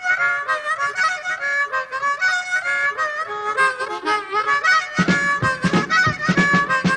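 Rock band music: a lead instrument plays a melody of held high notes with little backing, and about five seconds in the bass and drums come in with a steady beat.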